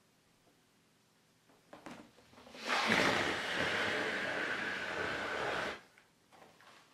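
Air rushing out of a large 24-inch latex balloon through its open neck as it is let down: a loud, steady hiss of about three seconds that cuts off sharply as the balloon empties. A few faint rubbery handling noises come before it.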